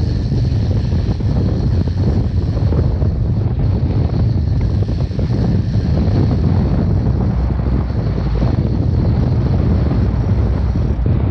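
Steady wind rumble on the microphone over the running of a boat's outboard motor and the wash of waves on rough open water.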